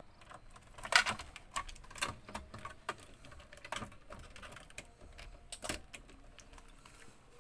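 Irregular light clicks and knocks, a few a second, the loudest about a second in and another near the end.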